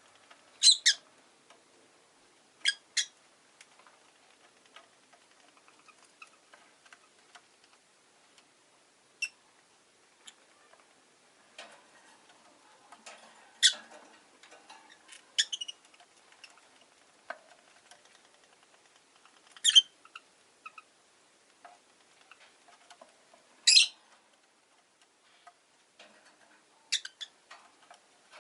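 Rosy-faced lovebirds giving short, sharp, high-pitched chirps, single or doubled, spaced a few seconds apart with quiet gaps between.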